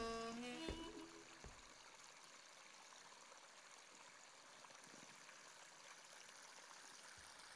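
A harmonica tune fades out in the first second or so, leaving the faint, steady trickle of a small creek.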